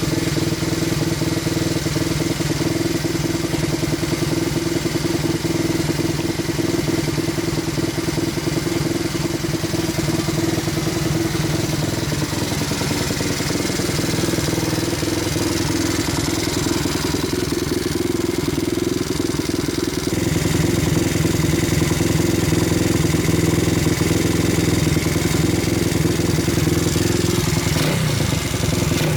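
Honda Monkey's small four-stroke single-cylinder engine, freshly rebuilt, idling steadily. About two-thirds of the way through it runs a little louder, and near the end its pitch shifts briefly.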